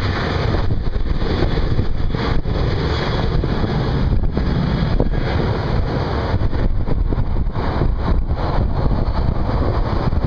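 Wind buffeting the microphone over the distant, steady roar of a Southwest Boeing 737's CFM56 jet engines at takeoff thrust during the takeoff roll.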